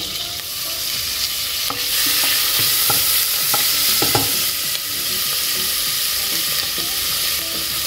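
Diced bacon sizzling in hot olive oil and butter in a stainless steel pot, the sizzle swelling about two seconds in, with a few clicks of a spoon stirring it.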